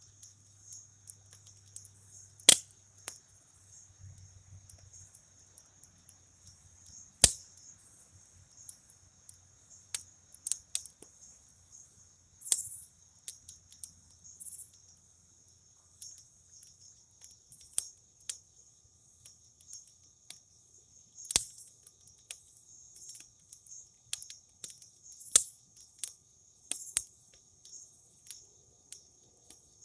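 Wood fire crackling, with sharp pops every few seconds, the loudest about two and a half and seven seconds in, over a steady high chorus of crickets.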